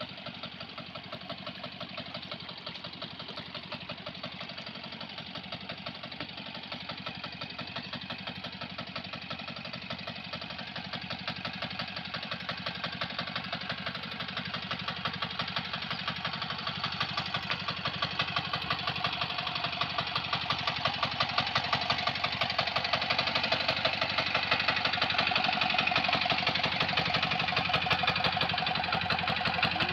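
A small engine running steadily with an even, rapid pulse, growing gradually louder through the second half.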